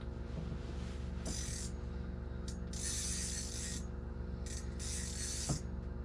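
Ice-fishing reel's drag buzzing in three spurts, about a second in, around three seconds in and about five seconds in, with short ticks between, as a fish pulls line off a set line: a fish has taken the bait. A steady low hum runs underneath.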